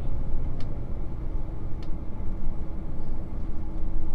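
Steady road and engine rumble inside a moving vehicle's cabin as it drives along, with a faint steady hum and a couple of light ticks.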